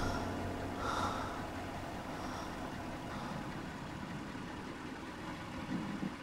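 Car running, heard from inside the cabin: a low, steady engine and road hum.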